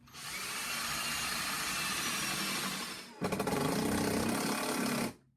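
Power saw cutting wood, two runs: about three seconds, a short break, then about two seconds more before it stops abruptly.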